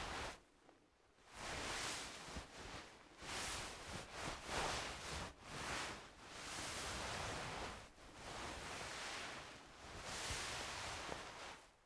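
Wool fabric being moved and handled: a run of soft rustling swishes, each a second or two long, with brief pauses between them.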